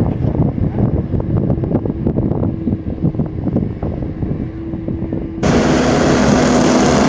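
Heavy construction machine engine running low, with wind buffeting the microphone. About five seconds in, the sound cuts abruptly to a louder machine with a steady hiss and hum.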